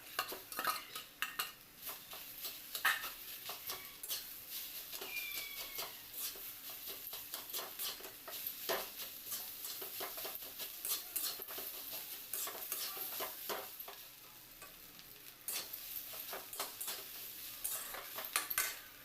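A spatula stirring and scraping food in a metal pan, with irregular clicks and knocks against the pan over a steady sizzle. The stirring eases off briefly about three-quarters of the way through, then picks up again.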